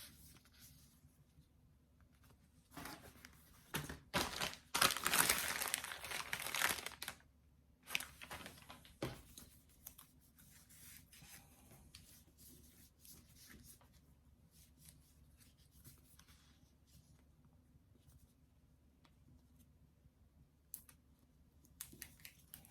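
Packaging being torn open by hand: a few short rips, then one long loud tear a few seconds in, followed by quieter crinkling and handling of the package.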